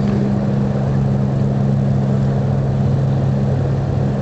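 Large cargo ship's engines running with a steady low drone: two constant hum tones under a wash of noise.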